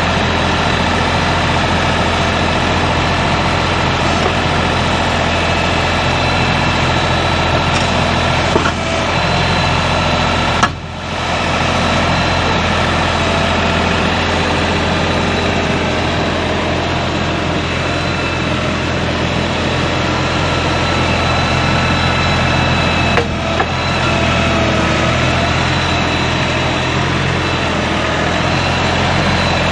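Tractor engine running steadily, with a brief drop in level about eleven seconds in.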